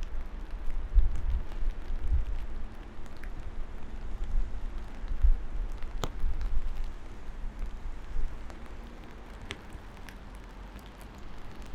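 Steady rain with a few sharper drips landing close by, over a low, uneven rumble.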